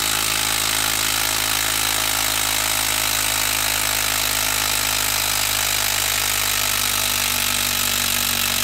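A Makita 12-volt brushed quarter-inch hex impact driver hammers steadily without a break as it drives a long screw into a wooden log.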